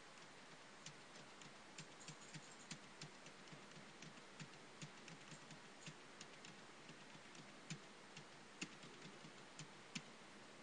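Computer keyboard being typed on: faint, irregular key clicks, a few a second, over a low steady hiss, with a few louder key strikes near the end.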